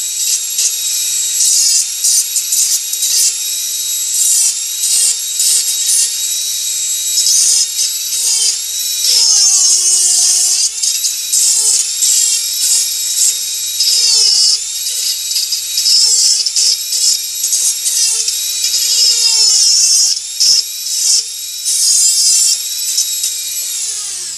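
Dremel 4000 rotary tool driving a carving burr through a flex shaft, running at high speed with a steady high whine. The pitch sags and grates each time the burr is pressed into the wood, then recovers.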